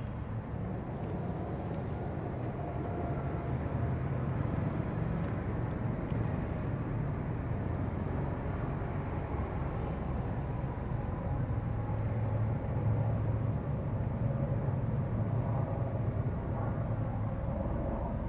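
Steady low rumble of distant motor noise. It swells a little toward the middle and eases slightly near the end.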